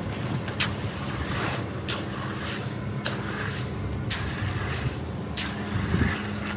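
A machine engine running steadily, overlaid by five sharp scrapes or clacks about a second apart as metal hoes push and spread wet concrete over a roof slab.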